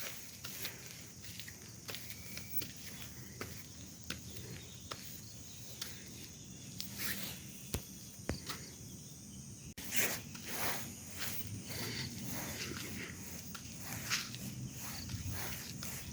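Scattered rustles and short clicks over a steady high-pitched insect drone, with a brief break about ten seconds in.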